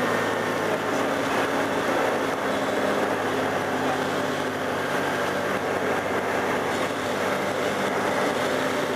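Tecnam P92 ultralight's engine and propeller droning steadily in cruise-climb, heard from inside the cockpit along with a constant rush of air.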